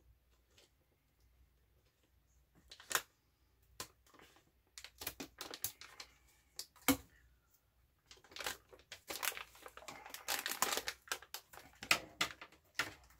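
Plastic resealable candy pouch crinkling and clicking in the hands as it is worked open, a few scattered crackles at first and then busier, denser handling in the last five seconds, with one sharper knock about seven seconds in.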